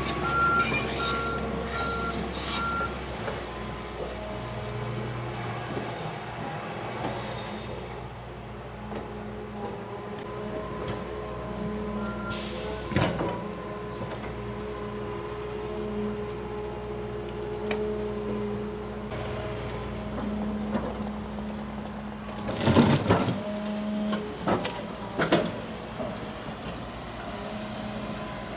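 Large excavator's diesel engine running steadily while its hydraulics work, with a travel alarm beeping for the first few seconds. A hiss comes about twelve seconds in, followed by heavy knocks of the clamshell bucket and stump, the loudest a cluster about two-thirds of the way through.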